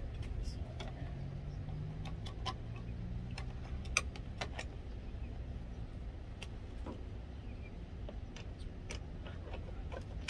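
Scattered light clicks and ticks from hands working the mounting foot of a Subaru OEM fixed roof crossbar, with one sharper click about four seconds in, over a steady low rumble.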